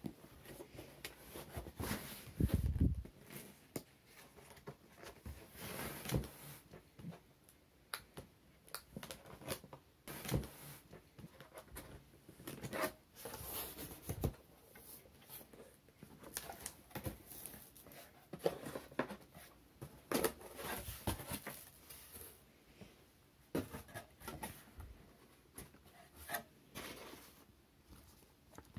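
Cardboard box being opened and unpacked by hand: irregular rustling, scraping and clicking of cardboard flaps and packaging, with a dull thump about three seconds in.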